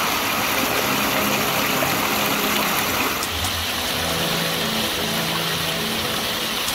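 Rainwater runoff rushing and splashing over rocks in a small stream, a steady hiss of flowing water. The sound shifts slightly and drops a little about three seconds in.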